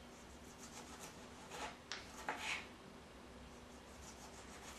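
Kitchen knife slicing through a fresh tomato on a wooden cutting board: a few faint cutting sounds with a light click of the blade, bunched around two seconds in.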